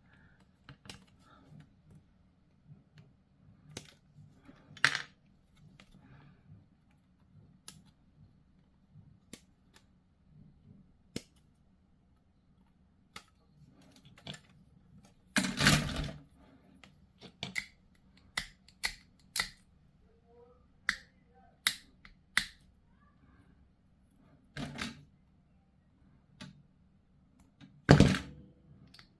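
Small plastic model parts being handled and pressed together: scattered light clicks and taps, with a louder clatter about halfway through and another near the end.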